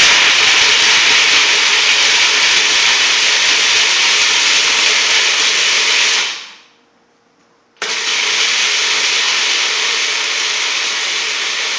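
Food processor motor running, grinding raw cashews and nutritional yeast into a dry vegan parmesan crumb. It runs for about six seconds, winds down, and starts again about a second later.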